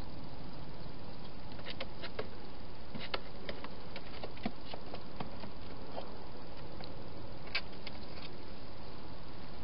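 Scattered, irregular small clicks and rustles from a wild hedgehog moving about a plastic feeding box and the ground beside it, over a steady hiss from the camera's microphone; the sharpest click comes near the end.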